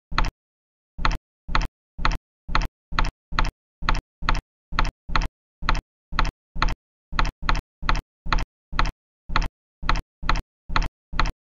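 Dubbed-in click of a TV remote's button, repeated about 28 times at an uneven two to three a second, the same short click each time with dead silence between. It is the sound of the remote being pressed over and over without working.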